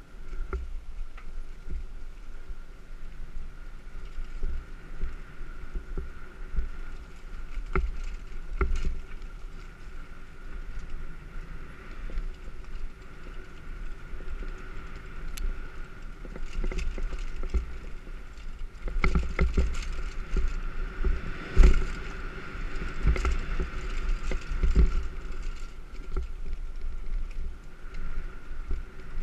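Specialized Demo 8 downhill mountain bike riding down a dirt forest trail: steady tyre and trail rumble with the rattle of the bike over bumps. A rougher stretch about two-thirds of the way through brings a run of louder knocks and clatter.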